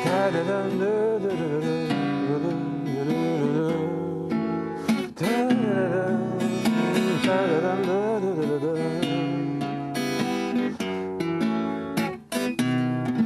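Instrumental interlude of a guitar-accompanied bard song: acoustic guitar strumming and picking chords, with a wavering melody line played above it.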